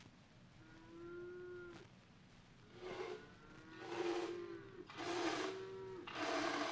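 Cattle mooing as a barn sound effect: one long, steady moo about half a second in, then four more moos in quick succession, each louder and breathier than the first.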